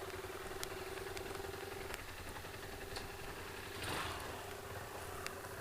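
Small 125cc single-cylinder motorcycle engine idling steadily.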